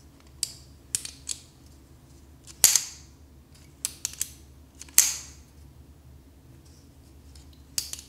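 Kizer Drop Bear clutch-lock folding knife being worked open and shut by hand: a series of sharp clicks and snaps from the blade and lock. The two loudest snaps come about two and a half and five seconds in, with lighter clicks between them.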